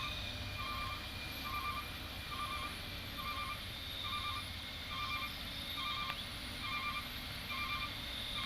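Truck's reversing alarm beeping steadily, about three beeps every two seconds, over the low rumble of an idling engine.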